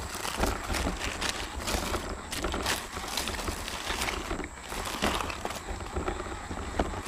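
RC rock crawler driving over loose creek-bed stones, heard through a camera mounted on its body: irregular clacks and rattles of tyres and chassis on rock over a low rumble of vibration.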